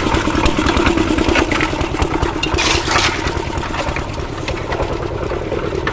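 Concrete mixer machine's engine running steadily while it mixes a batch of sand, gravel and water, with a brief hissing rush about two and a half seconds in.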